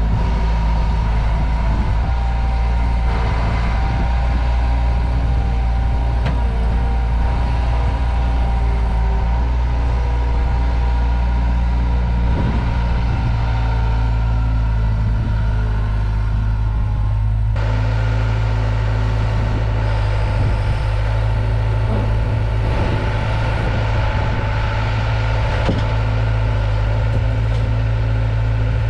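Diesel engine of a compact construction machine running steadily, with a steady whine above it. The tone shifts abruptly about two-thirds of the way in, as the engine's load changes.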